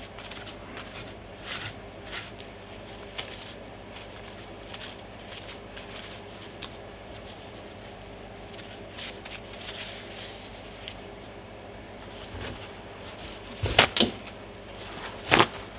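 Soft, intermittent rubbing and rustling of a paper towel wiped over a plastic keyboard membrane sheet on a table. Near the end, a few loud sharp knocks, two close together and one more a second and a half later.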